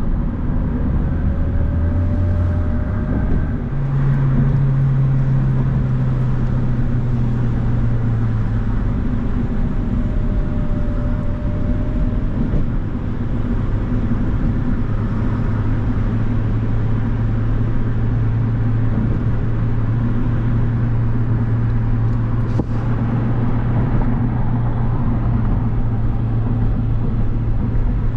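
Acura RSX Type S's 2.0-litre four-cylinder engine running under way, with road noise. The engine note steps up in pitch about four seconds in, eases down slightly over the next few seconds, then holds steady.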